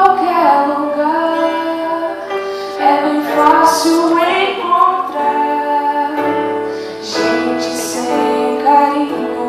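A woman singing solo into a handheld microphone, holding long notes, over a musical accompaniment.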